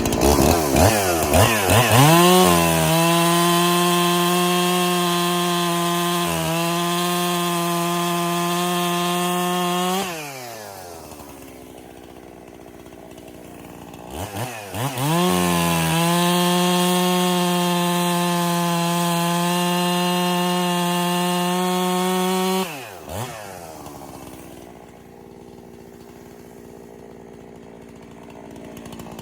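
Freshly rebuilt Husqvarna 371 two-stroke chainsaw, revved up to full throttle twice and held at high revs for about eight seconds each time while cutting firewood, dropping back to idle in between.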